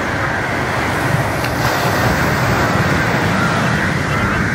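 Surf washing up a sandy beach: a steady, low rush of breaking waves.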